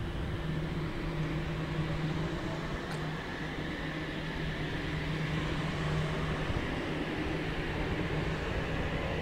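Sydney Trains OSCAR H-set electric train moving along the platform and gathering speed: a steady low hum with a motor whine that rises slowly in pitch.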